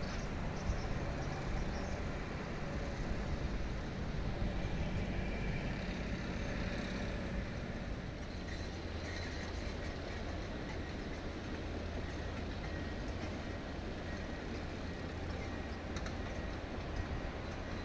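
Steady low hum and rumble of running machinery over a steady outdoor noise, unchanging throughout.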